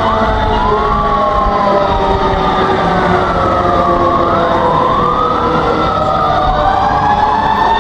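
Emergency alert alarm recording: siren tones slowly rising and falling over a steady chord of held tones, with a rough, noisy rumble underneath.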